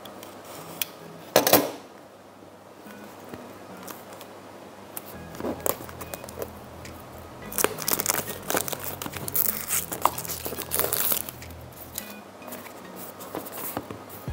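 Clear plastic shrink-wrap crinkling and tearing as it is slit with a cutter and peeled off a small cardboard toy box. There is a sharp crackle about a second and a half in, and a longer spell of crinkling in the middle.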